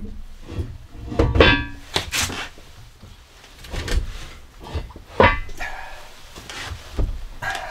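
Porcelain wall-mount sink being worked onto its steel mounting bars: a series of irregular knocks and clunks, some with a brief ringing.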